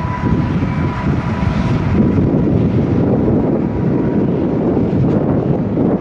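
Jet engines of an ANA Boeing 777 at takeoff power during its takeoff roll: a loud, steady rumble with a faint whine that fades within a few seconds. Strong gusty wind buffets the microphone over it.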